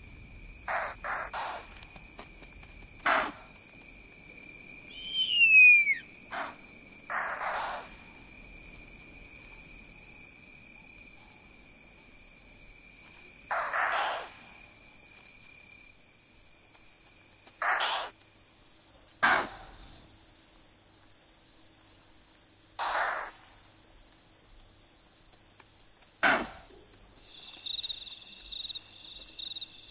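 Night insects trilling steadily, with a loud shrill call falling in pitch about five seconds in. Short noisy swishes come every few seconds.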